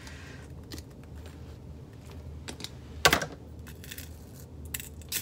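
Small metal clicks from hand tools and loose rivet parts being handled, with one sharp, ringing metal click about three seconds in.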